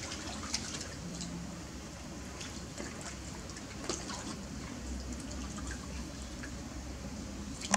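Small splashes and drips of water as young monkeys swim and climb in a pool, over a steady low hiss, with one sharper splash or knock near the end.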